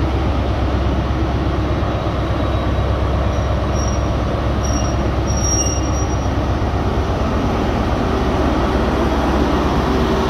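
Class 43 HST diesel power car running steadily while the train stands at the platform: a constant low rumble.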